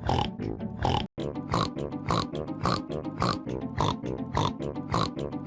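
Cartoon pig snoring sample chopped into a Sparta-style remix, repeated about twice a second over music, with pitch-shift effects. The sound cuts out for an instant about a second in, and after that the pitch sits higher.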